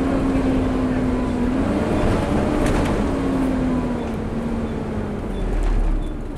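Volvo B7TL double-decker bus's engine cooling fan running loudly with the engine under way, heard from inside the bus, with its pitch following the gears. A steady whining tone steps up in pitch about a second and a half in, then slowly falls, over a dense rumble.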